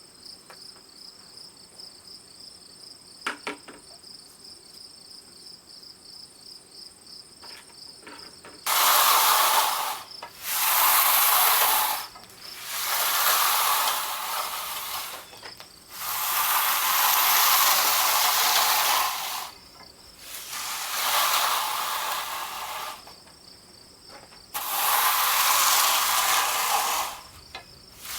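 Insects chirping steadily, then six loud bursts of hissing spray, each one to three seconds long, starting and stopping abruptly.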